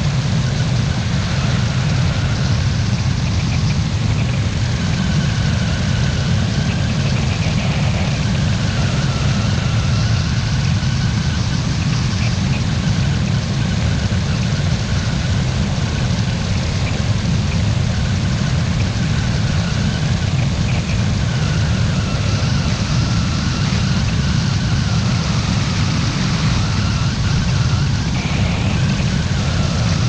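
Steady drone of a GT450 flex-wing microlight trike's engine and pusher propeller in cruising flight, mixed with heavy wind rush over a wing-mounted camera.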